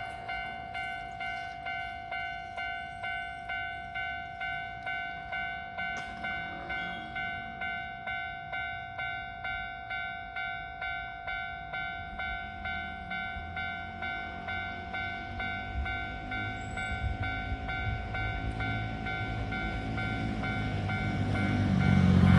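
Japanese level crossing warning bell ringing, a steady electronic ding about twice a second. In the last several seconds the low rumble of an approaching Keisei Skyliner AE-series train grows steadily louder.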